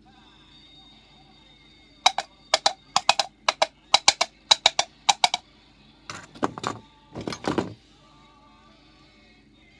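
Coconut shells knocked together in a clip-clop rhythm like trotting hooves, about a dozen sharp hollow clacks, followed by two duller, scraping knocks. A faint musical background runs beneath.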